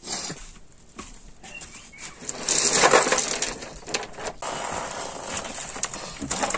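Ballast stones clattering and scraping in a metal wheelbarrow as they are handled by hand, with a dense, loud spell of rattling about two and a half seconds in and scattered clicks of stone on stone around it.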